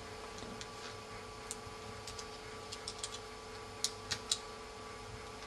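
Faint scattered small clicks as fingers handle an opened iPhone 3G/3GS and press its display ribbon-cable connectors onto the logic board, three close together about four seconds in, over a steady faint hum.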